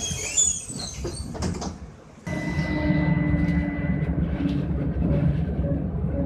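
Trolleybus doors working at a stop, with high squeaks and knocks over the first two seconds. Then, a little over two seconds in, the steady hum of the trolleybus's electric drive starts suddenly, with a thin high whine, as it moves off.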